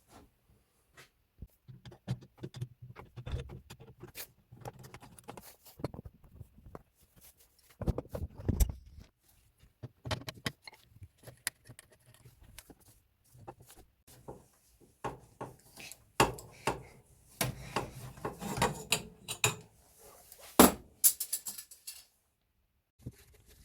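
Hand tools and engine parts being handled: scattered clinks, knocks and rubbing at an irregular pace, with the loudest knock about two-thirds of the way through.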